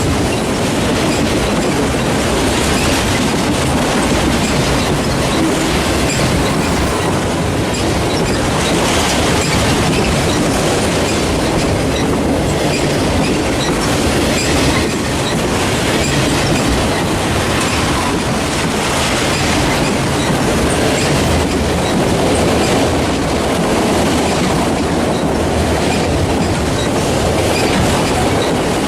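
Freight train cars rolling steadily past close by, the wheels clacking over the rail joints.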